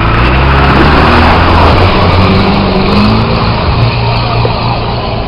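Off-road 4x4 engine revving under load as the vehicle wades through deep water on a flooded track, with water splashing and rushing around it. The engine's pitch climbs over the first few seconds, then holds steady.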